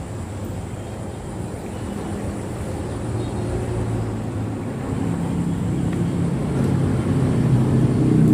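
A motor engine running and drawing nearer, its low hum growing steadily louder.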